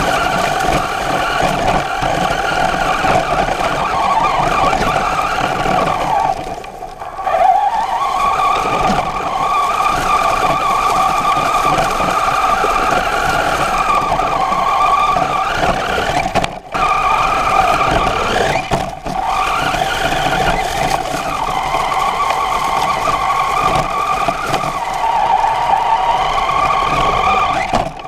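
RC truck's motor and drivetrain whining as it drives over grass, the pitch rising and falling with throttle over a rough rumble from the ground. It eases off about six seconds in, then winds back up, with two brief drops in the middle of the run.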